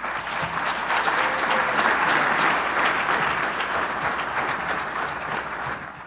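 Audience applauding steadily, fading out near the end.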